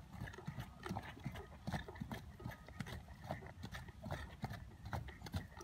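Horse's hooves striking a dirt arena in a collected trot: a steady run of short hoofbeats, several a second.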